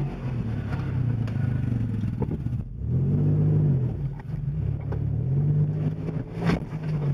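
Off-road SUV's engine heard from inside the cabin, revving up and easing off again several times as it crawls over a dirt mound. A sharp knock comes about six and a half seconds in as the vehicle lurches over the crest.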